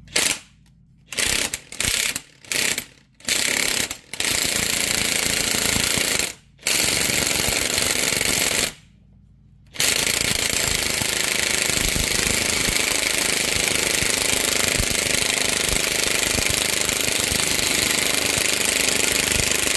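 Impact gun hammering as it drives the screw of a bearing press to push a universal joint through a Jeep axle yoke: several short bursts, two longer ones, then one long continuous run of about ten seconds.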